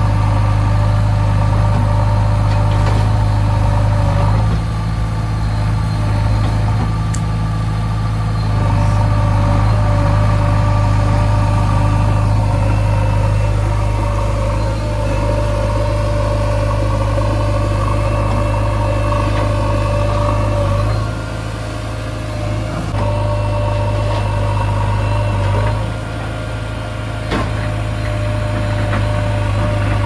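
JCB 3DX backhoe loader's diesel engine running steadily as the machine manoeuvres, its sound dropping briefly twice in the second half.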